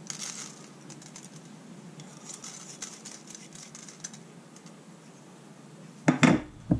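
Curry leaves with fenugreek and mustard seeds crackling lightly in warming oil in a frying pan: many small fine clicks over a soft hiss. Two louder knocks come near the end.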